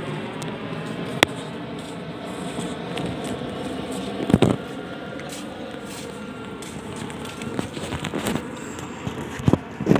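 Phone microphone being handled and carried while walking on a boardwalk: scattered crackles and knocks, the sharpest about a second in, near the middle and near the end, over a steady outdoor background hiss.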